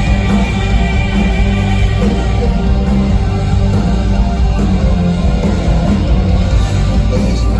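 A heavy metal band playing live: loud distorted electric guitars, bass and drums in an instrumental passage.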